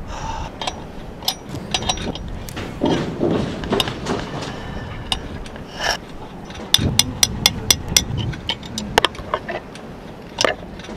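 Metal clinks and clicks of a spanner working the stainless fitting at the base of the jib furler as it is being disconnected, with a quick run of clicks about seven seconds in.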